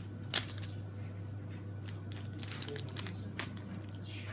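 Plastic toy packaging crinkling and crackling as it is handled and opened, with a few sharp clicks, over a steady low hum.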